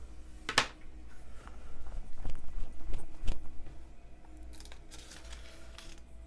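Thin Bible paper being handled and turned over: a sharp tap about half a second in, then scratchy rustling and crinkling of the page as it is lifted and flipped.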